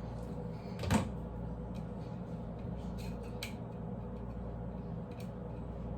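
Hands working at the plastic seal on a liquor bottle: a sharp tap about a second in, then a few faint clicks, over a steady low hum.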